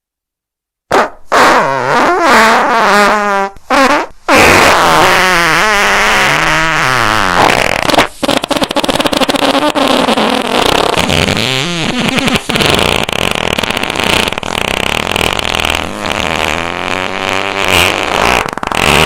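Fart sound effects: after about a second of silence, a few short loud farts, then a long, nearly unbroken run of farting whose pitch wobbles up and down, with one brief break partway through.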